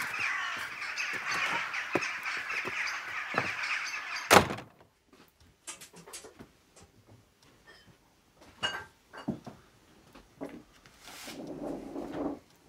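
Crows cawing among other birds outdoors. About four seconds in, a loud door thump cuts them off. Then a quiet room with small clicks and a soft rustle of handling near the end.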